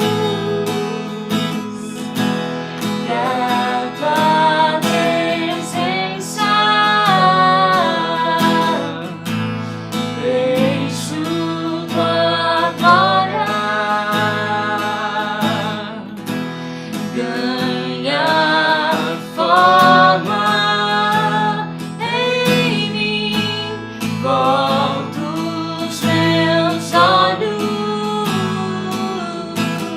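Acoustic cover of a Portuguese-language worship song: a strummed acoustic guitar accompanies a sung melody.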